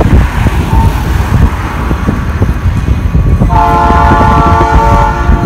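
A train locomotive's horn sounds a steady multi-note chord from about three and a half seconds in, over the low rumble and wind noise of the moving train.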